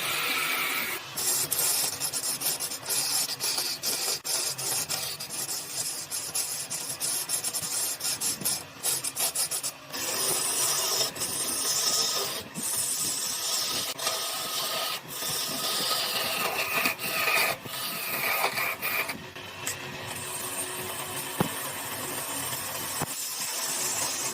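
Wood being worked with a rasping, scraping tool: continuous rough strokes with many short clicks and scratches, stopping at the end.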